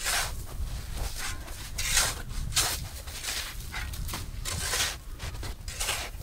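Long-handled shovel chopping and scraping into crusted snow, one rough crunching scrape about every second.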